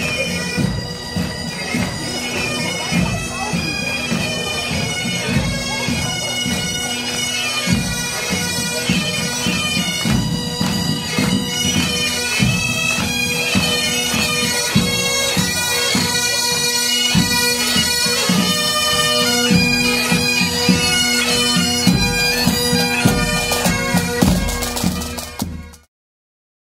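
Pipe band of Highland bagpipes and drums playing a march: steady drones under the chanter melody, with regular drumbeats. The music fades and stops just before the end.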